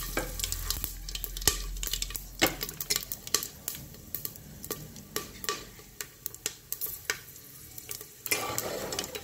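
Whole spices (bay leaves, cumin seeds, cardamom, black pepper, cloves, cinnamon) sizzling in hot oil and ghee in an aluminium pressure cooker, with irregular sharp pops and crackles as they splutter. This is the tempering stage: the crackling is the sign that the spices are done and the oil is ready for the onions.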